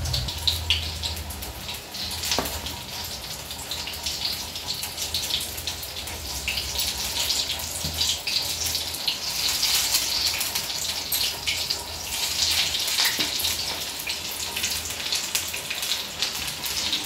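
Batter-coated stuffed green chillies deep-frying in hot oil in a kadai: a steady crackling sizzle that swells louder a little past the middle.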